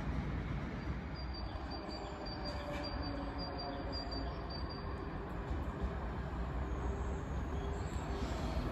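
Double-deck electric multiple unit approaching on the line: a steady low rumble of wheels on rail with a faint motor hum, growing slightly louder near the end.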